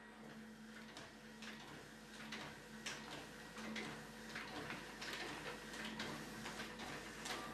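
Electric lift motor of a motorised height-adjustable scanner work table running with a faint low hum as the table rises, with scattered light clicks and ticks.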